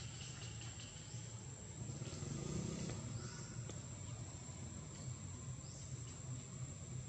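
Outdoor ambience dominated by a steady, high-pitched insect drone, with a few short rising calls over it and a low rumble underneath.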